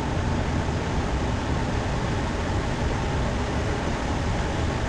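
Steady rushing noise, heaviest in the low range, with no shots or voices.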